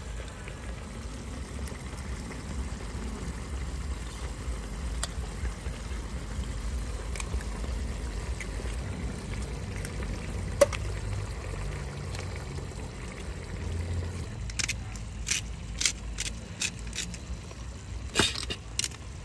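Tomato sauce simmering and bubbling in a pan on a portable gas camp stove, over the burner's steady low rush. A single sharp click comes about ten seconds in, and a run of sharp clicks and crackles near the end.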